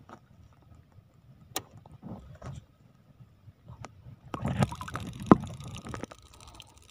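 Shallow seawater splashing as a thin fishing spear is jabbed at a crab and the crab is lifted out of the water. It is mostly quiet with a couple of sharp clicks until about four seconds in, then the splashing starts.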